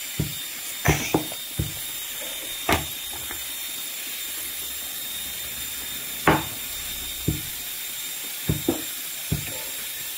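Wooden rolling pin rolling out flatbread dough on a round wooden board, with a dozen or so irregular knocks and clacks as the pin and hands strike the board, over a steady hiss.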